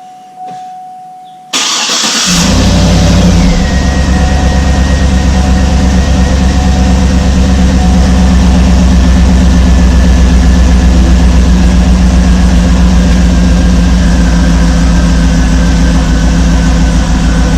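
A GM full-size SUV's V8 engine cranks and starts about a second and a half in, its revs settle after a couple of seconds, and it then idles steadily and loudly.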